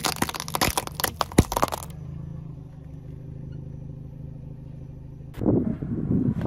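Car tyre rolling over a row of walnuts, the shells cracking one after another for about two seconds, followed by the car's engine running steadily. Near the end a louder crackling noise starts.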